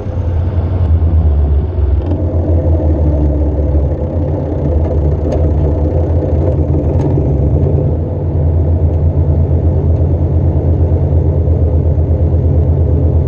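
Diesel engine of a 1980 Massey Ferguson 230 tractor running steadily, with a low, evenly pulsing throb.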